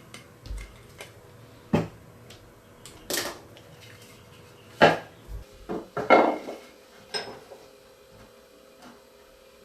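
Irregular clanks and knocks, some with a short metallic ring, from hard objects being handled and set down, over a faint steady hum.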